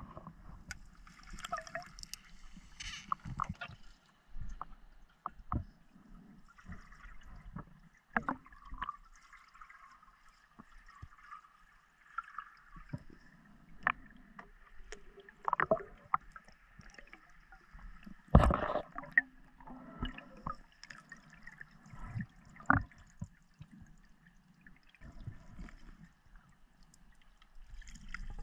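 Muffled underwater sounds of a diver moving slowly through reeds: faint gurgling with scattered small clicks and knocks, one sharper knock about two-thirds of the way through.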